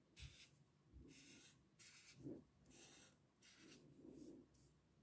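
Felt-tip marker drawing on paper in a quick series of faint scratchy strokes, about one stroke a second or a little faster, as curved tail-feather lines are drawn.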